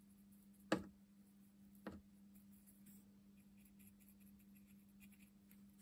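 A fine paintbrush tapping against its paint pot: two sharp taps about a second apart, the first the louder, then a few faint light ticks, over a low steady hum.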